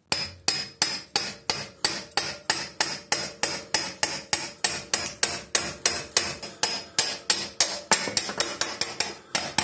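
Sharp metallic ticking from a motorcycle front wheel spinning on a stand: one tick about three times a second, evenly spaced and a little faster near the end.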